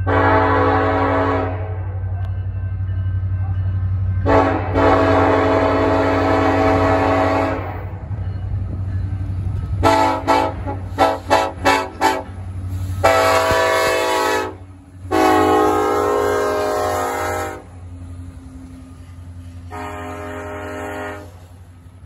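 BNSF SD70ACe diesel locomotive's multi-chime air horn sounding a horn salute: a blast, a long blast, a quick run of about five short toots, two more long blasts, and a fainter blast near the end. Under it, the steady low rumble of the passing locomotives and train.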